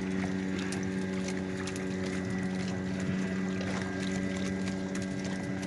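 Small fishing boat's engine running at a steady low speed, an even hum, with scattered small splashes and knocks from oars and poles working the water.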